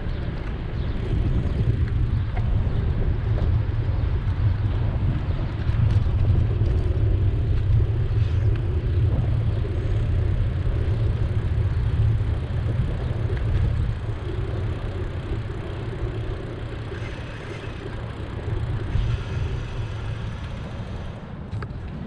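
City street noise heard from a moving bicycle: a steady low rumble of wind on the microphone mixed with passing road traffic, swelling and easing over the whole stretch.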